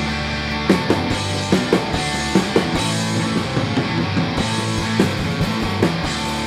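Rock music with electric guitar and drums, the hits of the drums coming through the steady guitar chords.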